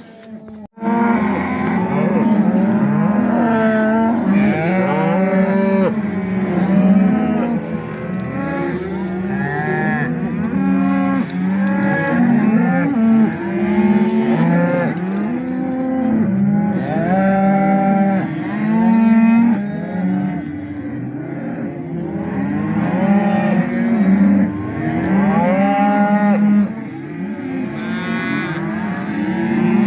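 A penned herd of beef cows and calves mooing and bawling, many calls overlapping without a break, starting about a second in.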